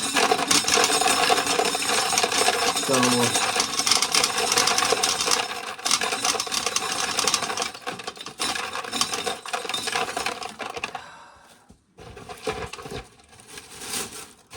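Corn sheller stripping dried kernels off an ear, the kernels clattering out in a dense, continuous rattle that dies away about eleven seconds in, followed by a few scattered clicks near the end.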